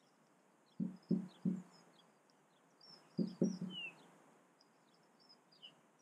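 Dull knocks close to the microphone in two quick runs of three, about a second in and again about three seconds in: a blackcap pecking at food on a mesh feeder tray. Faint high chirping of small wild birds runs underneath.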